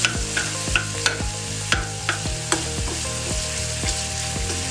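Chopped garlic sizzling in hot oil in a kadhai, stirred with a steel spoon that clicks and scrapes irregularly against the pan.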